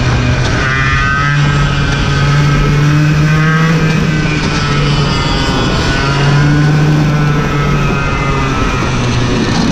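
Racing go-kart engine heard from the driver's seat, running hard on track. Its pitch rises and falls as the revs change through the corners.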